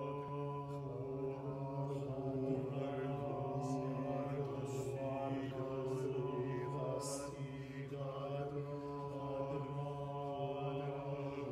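Choir singing a cappella: a low drone held steadily under slow, sustained chords in the upper voices, with soft hissing consonants here and there.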